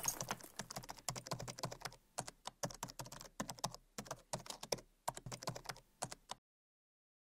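Computer keyboard typing sound effect: rapid, irregular key clicks that go with text being typed out on screen. They stop abruptly about six seconds in.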